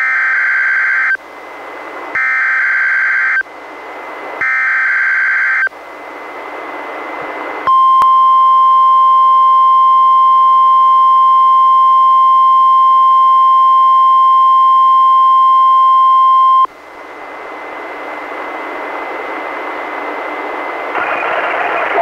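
NOAA Weather Radio alert tones from a weather-radio receiver. Three short two-tone data bursts come first, each about a second long: the SAME digital header. Radio hiss follows, then the steady single-pitch 1050 Hz warning alarm tone for about nine seconds, then hiss again.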